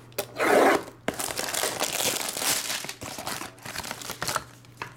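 Plastic shrink-wrap on a sealed sports-card box being cut and torn open, then crinkling as it is pulled off and the box is opened. There is a short, louder rip about half a second in.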